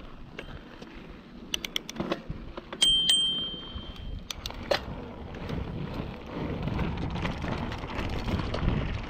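Mountain bike rolling over a stony dirt trail: tyre crunch on gravel with rattling clicks from the bike over bumps, and wind on the microphone, growing louder in the second half. About three seconds in, two sharp metallic dings leave a ringing tone for about a second.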